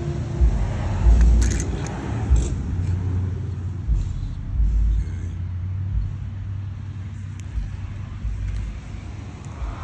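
Uneven low rumble with a steady low hum through the middle, and a few short light clicks between one and two and a half seconds in.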